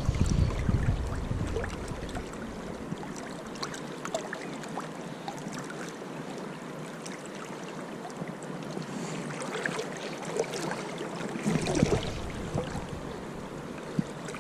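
River water running fast and steady around the wader, with scattered small splashes. Gusts of wind buffet the microphone at the start and again near the end.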